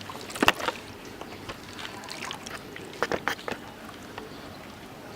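Water splashing and sloshing, with a cluster of sharp splashes about half a second in and another around three seconds in.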